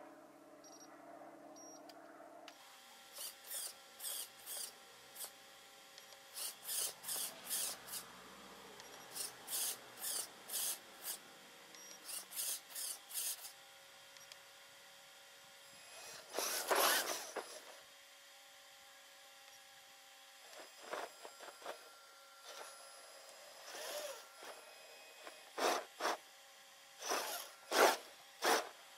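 Motors and steering servos of an Axial XR10 radio-controlled rock crawler whirring in short bursts, in quick runs of several at a time, with one longer, louder whir about halfway through and a few more bursts near the end.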